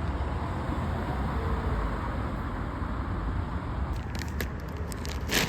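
Steady low rumble of vehicle noise, with a few light clicks in the second half and a sharper click near the end.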